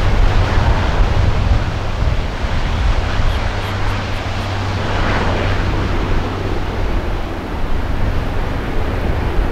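Four turboprop engines of the Blue Angels' C-130 'Fat Albert' running as it taxis, a steady low drone under a rushing propeller noise that swells briefly about five seconds in.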